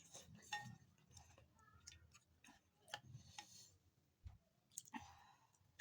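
Faint eating sounds: soft chewing and mouth noises with scattered small clicks, from a person eating rice and chicken curry.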